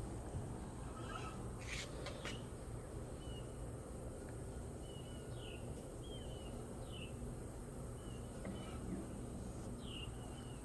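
Faint high chirps from a small bird, repeated roughly once a second, some dipping in pitch, over a low steady hum, with two brief knocks about two seconds in.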